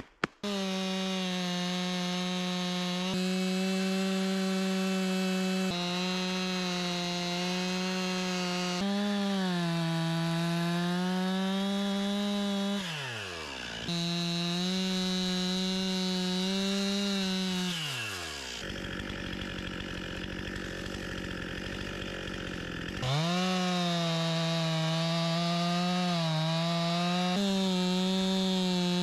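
Two-stroke chainsaw running at full throttle, cutting through a thick stump and log. Twice the throttle is let off and the engine note falls, the second time into a few seconds of low running before it revs back up to cut again.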